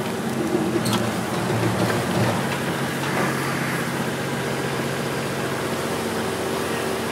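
JCB 3CX backhoe loader's diesel engine running steadily, with no breaker strikes.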